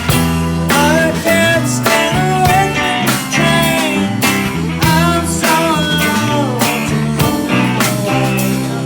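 Rock band playing an instrumental section: an electric guitar plays a lead line with bending, sliding notes over steady bass and drums.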